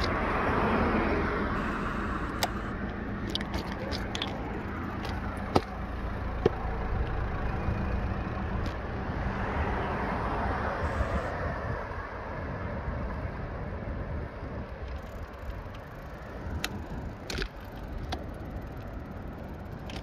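Car driving on city streets, heard from inside the cabin: a steady engine and tyre rumble, with a few scattered light clicks.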